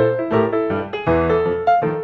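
Background piano music: a quick, evenly paced run of notes, several sounding together.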